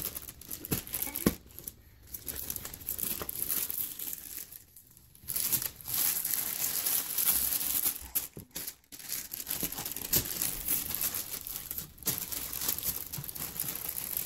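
Paper sheet on a medical examination table crinkling irregularly as a baby shifts about on it, with a few short pauses.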